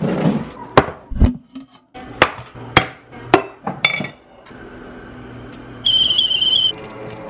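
Kitchen clatter: a quick series of sharp knocks and clinks as cabinet doors, a tin and ceramic mugs are handled, the last clink ringing briefly. About six seconds in, a stovetop kettle whistles with one high steady tone for under a second.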